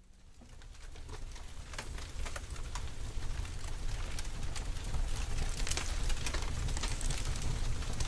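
Dense crackling and pattering noise over a low rumble, swelling steadily from near silence; the music has not yet begun.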